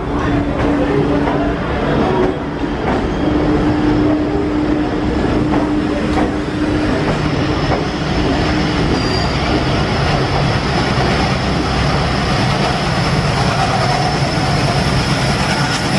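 Express train passing at speed, a steady loud rumble and rattle of coach wheels on the track, with a steady whine through the first half.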